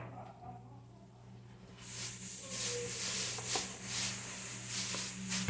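Liquid dish detergent squeezed from a plastic bottle into the slime mixture: a sputtering, hissing squirt with small clicks that starts about two seconds in, over a low steady electrical hum.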